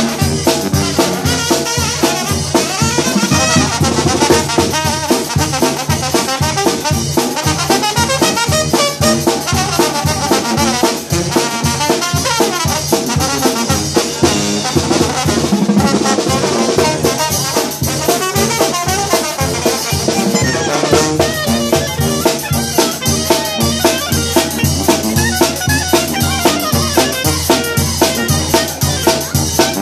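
Mexican banda brass band playing live: brass and tuba over a drum kit keeping a steady beat.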